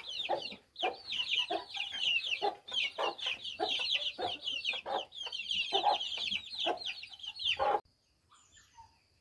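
A flock of hens and bantam chickens clucking and calling in quick, overlapping succession as they settle on their roost for the night. The calling cuts off abruptly near the end, leaving only faint chirps.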